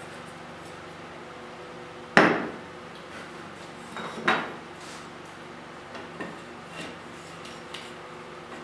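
Sharp metallic clanks of a long metal bar knocked against a wooden door frame on a workbench: a loud one with a short ringing tail about two seconds in, a second about four seconds in, then a few lighter taps, over a steady low hum.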